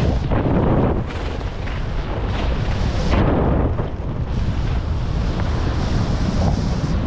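Wind buffeting a GoPro's microphone as it moves at skiing speed, a steady low rumble. Over it come a few brief swishes of ski edges carving through snow on the turns.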